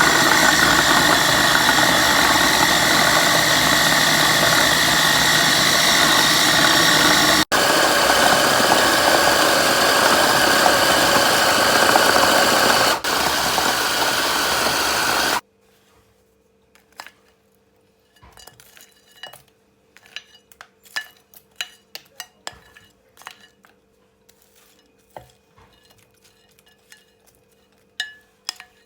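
Electric food processor running steadily at full power for about fifteen seconds, as for grinding meatball dough, with a brief break about halfway and a small drop in level near the end before it stops suddenly. After it stops, light clinks and taps of bowls and utensils follow.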